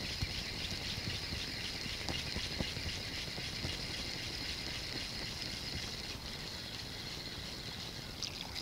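Spinning reel on an ultralight rod being wound in steadily, a fine whirring rattle of its gears, cutting off near the end. The feeder rig is being retrieved after a suspected snag.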